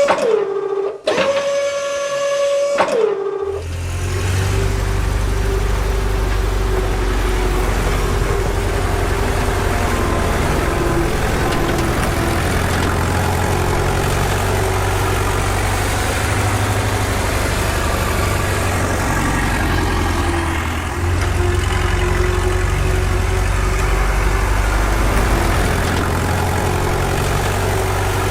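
Two short high tones, each dropping in pitch as it ends, then a steady low engine idling sound from about three seconds in.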